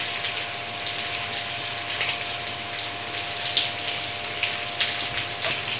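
Crab thoran of grated coconut and crab meat sizzling in a steel pan on the stove: a steady frying hiss with scattered small pops, over a faint steady hum.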